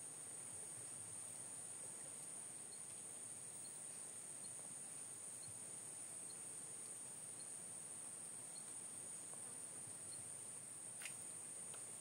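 Steady high-pitched drone of forest insects, with a few faint scattered chirps and a single click near the end.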